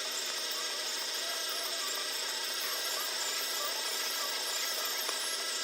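Sharp GF-9191X boombox giving a steady hiss with a faint machine whir and thin steady tones, after a small click at the start.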